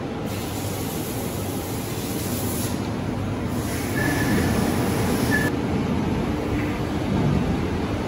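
Steady industrial hall background noise: a continuous low mechanical rumble, with a high hiss that comes in just after the start and cuts off about five and a half seconds in.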